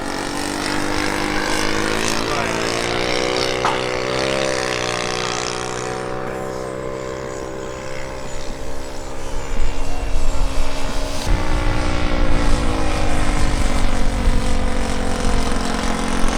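Radio-controlled model jet (an F-14 Tomcat) flying, its engines giving a steady whine that rises and falls in pitch as it passes. A louder, rough low rumble joins about ten seconds in.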